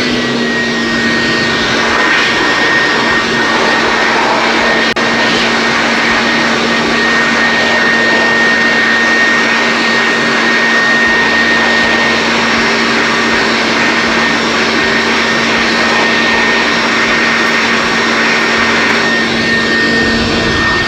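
A heavy-duty 2-in-1 air blower and vacuum cleaner running steadily at full speed, held on by its lock button. The rush of air carries a steady high-pitched whine.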